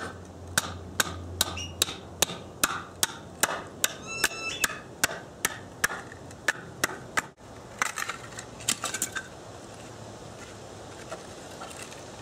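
Bamboo pole being split lengthwise down the middle by striking it with a wooden baton: a steady run of sharp knocks, about two or three a second, for some seven seconds. A short spell of softer cracking follows about eight seconds in.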